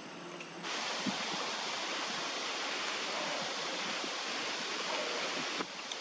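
Steady rushing wind noise, starting abruptly under a second in and dipping briefly near the end, with a few soft knocks.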